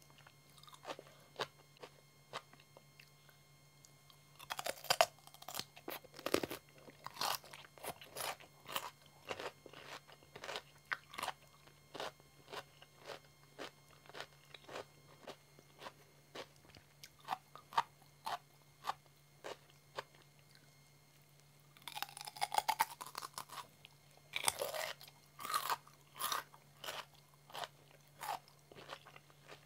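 Close-miked biting and chewing of a raw cucumber: crisp, wet crunching chews throughout, with louder crunching bites about five seconds in and again from about twenty-two to twenty-five seconds in.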